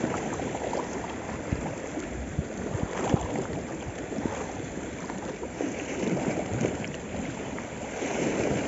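Sea waves washing and splashing against shore rocks, surging louder a couple of times, with a few sharp clicks in the first few seconds.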